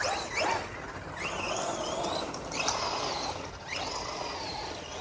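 Electric motor of a Losi 8ight X Super Lasernut 1/6 RC buggy whining up in pitch about five times as it accelerates in bursts, over a steady rush of tyre and drivetrain noise.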